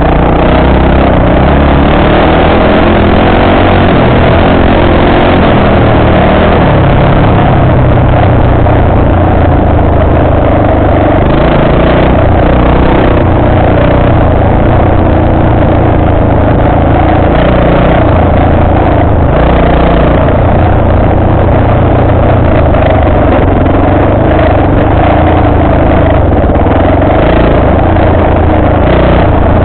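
ATV engine running loud and steady while riding along a dirt trail, its pitch rising and falling a little with the throttle.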